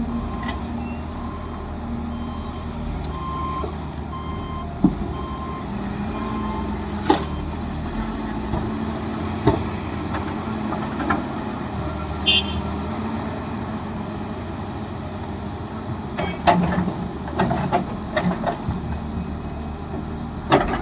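A heavy construction machine's warning alarm beeping about twice a second over a low, steady diesel engine hum. The beeping stops about six seconds in, and scattered sharp knocks and clanks follow, more of them near the end.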